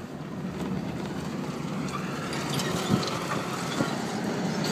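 Steady road and engine noise heard from inside a moving car, with two light knocks about three and four seconds in.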